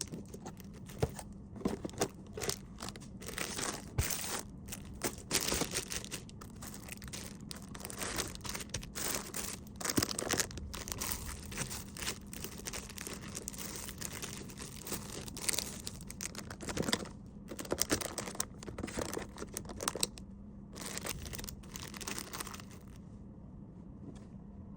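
Plastic packaging crinkling and rustling in irregular handling bursts as small items are packed, stopping near the end, over a faint steady hum.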